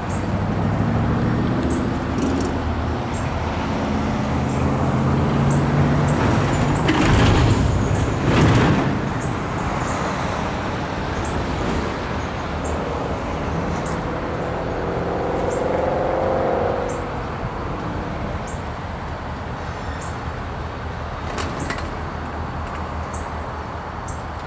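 Low drone of unseen SD40-2 diesel locomotives working, their engine pitch shifting, then rising about thirteen seconds in before dropping away near seventeen seconds. Two brief, louder rushing swells come about seven and eight and a half seconds in.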